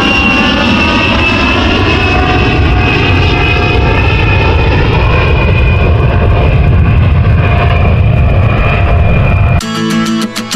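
Loud, steady airplane engine noise with a high whine slowly falling in pitch. About nine and a half seconds in it cuts off abruptly and strummed guitar music begins.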